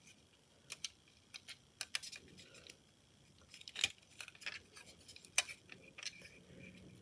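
Light, irregular clicks and taps of a small die-cast model truck being handled and turned over in the hands, the louder ones a few seconds in.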